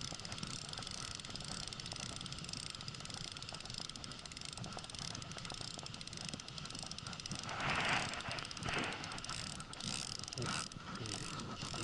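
Spinning reel being cranked steadily while reeling in a hooked squid, its gears giving a fine, rapid ticking whir. A brief louder rush of noise comes about eight seconds in.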